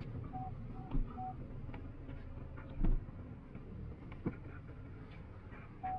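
MG Gloster's parking sensor beeping in short, even beeps, about two to three a second, for the first second or so. It falls silent, then starts beeping again at the very end as the car nears an obstacle. Under it runs a low cabin rumble, with two dull low thumps, about one and three seconds in.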